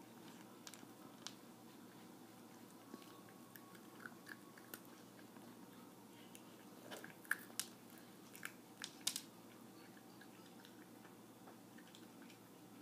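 A cat crunching dry kibble from a food dish: faint, irregular crunches and clicks, with a run of louder crunches between about seven and nine seconds in.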